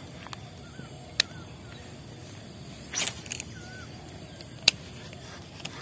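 Fishing rod and reel being cast: a sharp click about a second in, a short swish of the cast about three seconds in, and another sharp click near the end. Faint chirping calls sound in the background.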